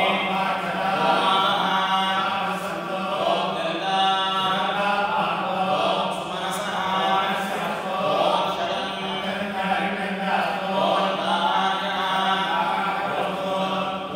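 Priests chanting Sanskrit mantras together in a continuous recitation that holds a steady low pitch underneath.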